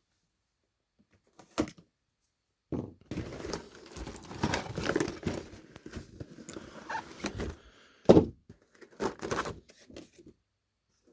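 Cardboard miniatures box being opened and its contents handled: a run of rustling and knocking, with a sharp thunk about eight seconds in.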